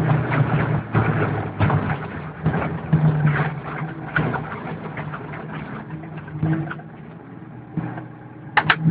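VW Golf Mk2 rally car's engine heard from inside the cabin while driving a rough dirt track, with stones and bumps knocking against the car. The engine note drops as the car slows, and a few sharp knocks come near the end as it draws to a stop.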